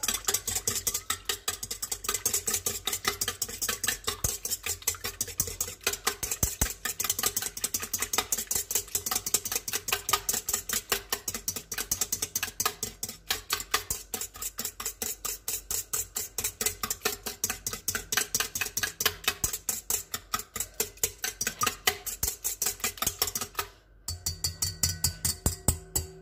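Wire whisk beating milk, yeast and egg in a stainless steel mixing bowl, its wires clicking rapidly and evenly against the metal. The whisking stops shortly before the end.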